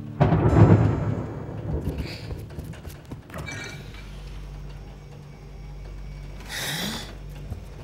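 A sudden low rumbling thump about a second long, followed by a low steady hum and a short hiss near the end, under soft background music.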